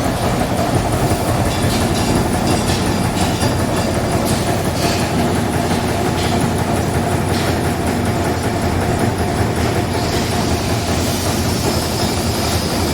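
Amada EM2510NT servo-electric CNC turret punch press punching sheet metal, a dense, steady clatter of rapid repeated strokes, with a faint high whine joining near the end.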